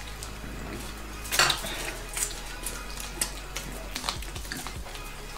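Tableware clinking and tapping at a meal: plates, cutlery and glasses knocked as shellfish is picked at and eaten. A scattered series of sharp clicks, the loudest about one and a half seconds in.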